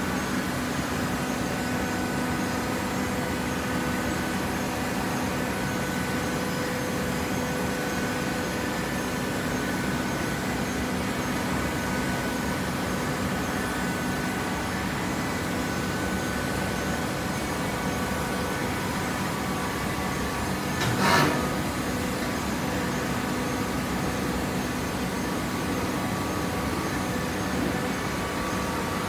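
Horizontal hydraulic baler running, a steady machine hum with several steady tones from its power unit. A single short bang about three-quarters of the way through.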